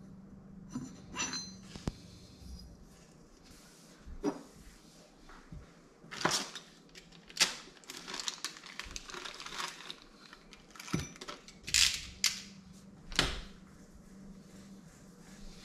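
Small metal engine parts being handled and worked with a hand tool: irregular clicks, clinks and scrapes, with a few sharper knocks, louder from about six seconds in.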